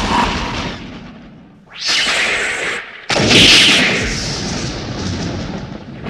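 Lightning-strike and thunder sound effects: three crashing blasts one after another, each starting suddenly and dying away over a second or two.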